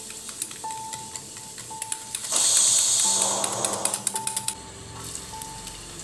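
A wire whisk clicking quickly against a steel bowl as a batter is beaten. About two seconds in, onion in hot oil in a frying pan sizzles loudly for a second or two, then eases into lighter crackling.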